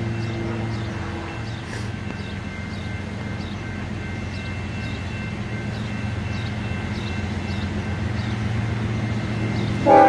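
Diesel freight locomotives approaching with a steady low engine drone that slowly grows louder. Right at the end the lead locomotive's air horn starts a loud blast.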